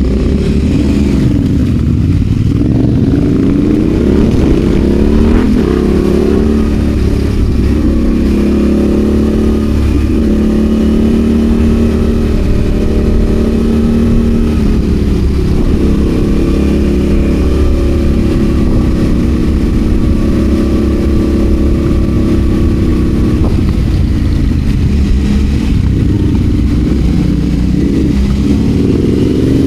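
Adventure motorcycle engine under way, its pitch rising and falling with the throttle and gear changes and holding steady for stretches.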